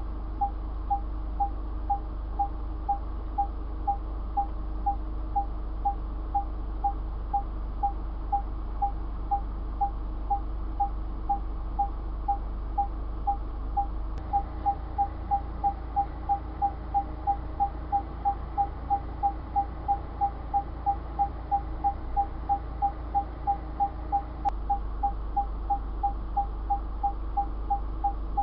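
Car parking sensor beeping: short, evenly spaced beeps at one pitch, about two a second, quickening to about three a second midway for around ten seconds, then slowing again. The beeps come faster as an obstacle gets closer. A steady low hum sits underneath.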